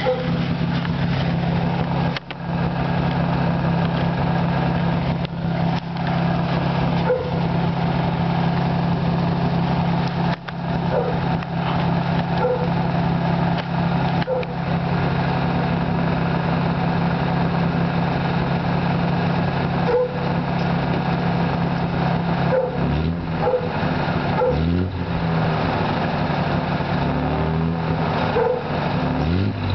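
1939 Dodge D11's 218 cubic-inch flathead inline six running at the tailpipe, idling steadily, then revved up and down several times after about twenty-three seconds.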